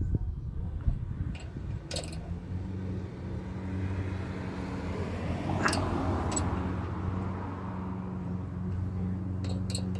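A motor vehicle going by: a steady low engine hum, with road noise swelling to a peak about halfway through and then easing. A few sharp clicks, like hand tools being handled, sound over it.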